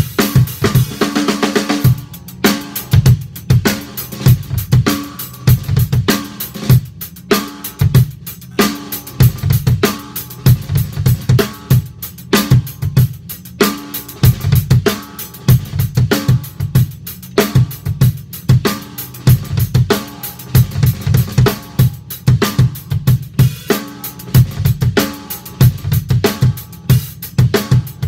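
Acoustic drum kit played with sticks: a busy, continuous groove of bass drum, snare and hi-hat. Cymbals wash over the first two seconds, then the beat carries on drier.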